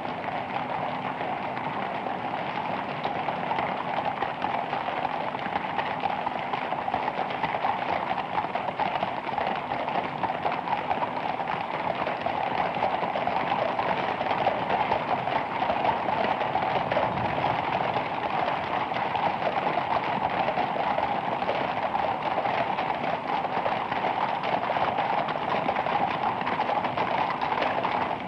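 Horses walking, their hooves clip-clopping in a dense, steady run of strikes.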